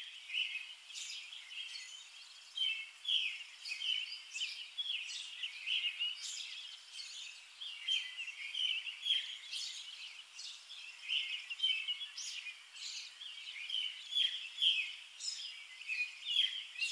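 Small birds chirping, many short high calls one after another and overlapping.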